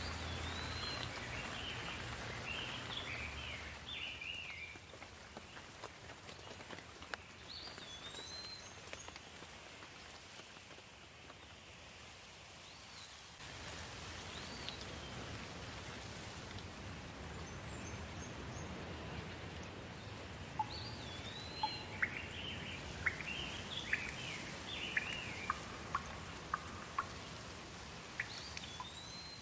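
Steady rain falling, with a bird repeatedly singing short chirping, whistled phrases over it. In the second half, scattered sharp drip-like ticks sound.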